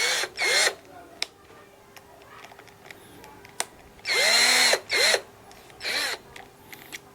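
Cheap cordless drill run in five short trigger pulls, its motor whining up in pitch and winding down each time: two quick pulls at the start, then three more about four seconds in.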